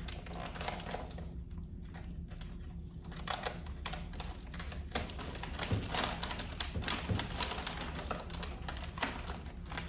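Printer packaging being handled and unpacked by hand: irregular light taps, clicks and rustles of the packing material, with no steady rhythm.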